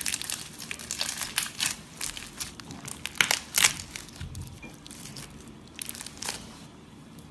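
Slime being pressed and worked by hand, giving a run of crackling, crunchy clicks that thin out after about four seconds.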